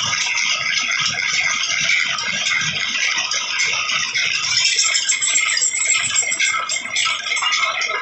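Twist drill bit cutting steadily through a steel bar, a dense scratchy rattle of chips breaking off over a thin steady whine.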